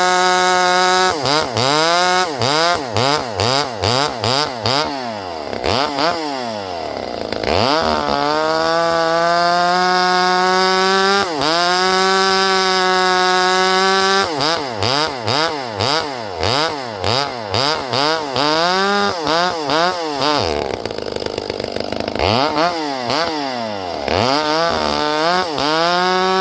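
Two-stroke chainsaw engine held at high revs in long steady stretches and, in between, revved up and down in quick bursts of about two a second. Twice it drops right back to a low idle before it is throttled up again.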